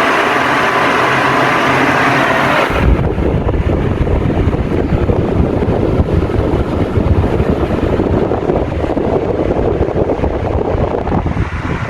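Ventisol 50 cm table fan running with a steady whoosh of air. About three seconds in, the sound turns abruptly into a heavy low rumble of the fan's airflow buffeting the microphone.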